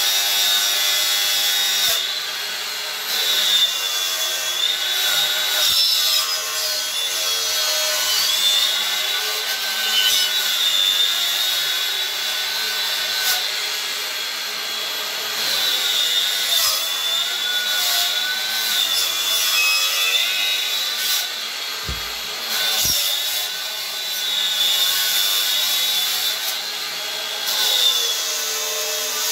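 Cordless angle grinder with a chainsaw carving disc cutting into a block of ash wood: a steady motor whine that sags and recovers in pitch as the disc bites into the wood and eases off. Two short low knocks come a little past the middle.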